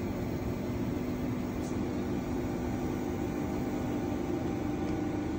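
Schiess Froriep 40 DZ U CNC vertical turning lathe running under power, a steady mechanical hum with a held low tone and no change in speed.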